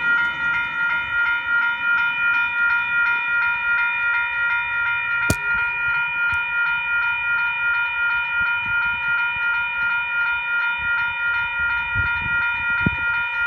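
Two Western Cullen Hayes electronic level-crossing bells ringing in a steady, rapid pulse, a few strokes a second, with one bell slower than the other so their strokes drift out of step. A single sharp click about five seconds in.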